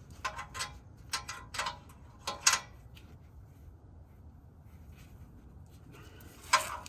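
Metal hand tools (socket, extension and ratchet) clicking and clinking against each other and the turbo bolts: a quick run of sharp clicks over the first couple of seconds, then quiet, then two more sharp clicks near the end.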